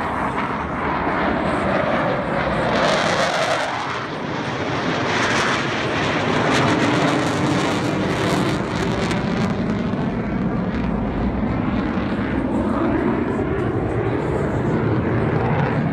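Jet engine noise from four US Navy Blue Angels F/A-18 Hornets flying a formation loop: a steady rushing rumble whose pitch falls during the first few seconds.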